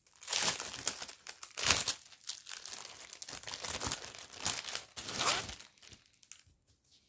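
Clear plastic packaging crinkling and rustling as cross-stitch fabric is pulled out of its bag, in a series of bursts that die away after about five and a half seconds.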